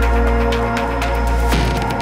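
Electronic background music with a steady beat, held synth tones and a heavy bass; the arrangement shifts about one and a half seconds in.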